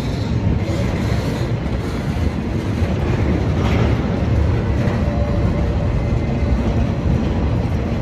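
CSX maintenance-of-way rail train rolling slowly past, a steady loud rumble of wheels on the track.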